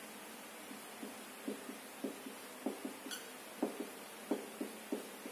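Whiteboard marker writing on a whiteboard: a string of light, irregular taps and short strokes, a few a second, with one sharper tick about three seconds in.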